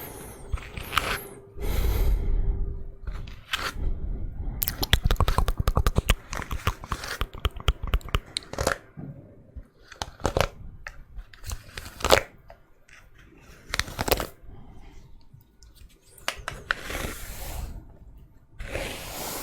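Hairbrush bristles dragged through hair close to the microphone, making irregular crackling, scratchy strokes. A dense run of rapid crackles comes from about five to eight seconds in, and softer swishes follow near the end.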